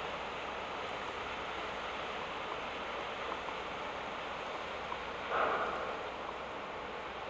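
Steady rushing hiss of water from a passing container ship's wash and the waves along its hull, with a brief louder burst about five and a half seconds in.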